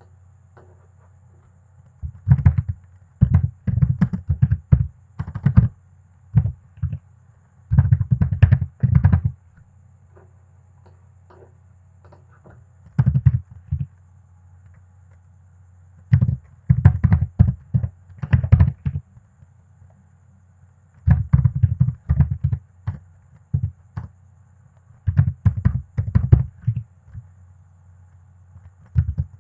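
Computer keyboard typing in quick bursts of keystrokes, each burst one to three seconds long with short pauses between, over a faint low steady hum.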